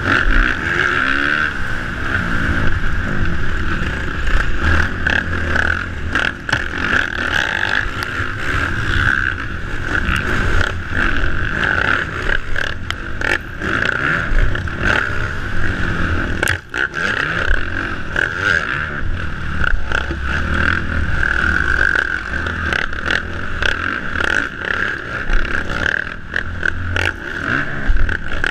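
Motocross dirt bike engine running hard under race load, its pitch rising and falling with throttle, heard from a helmet-mounted camera with steady wind rush on the microphone. Scattered sharp knocks sound throughout.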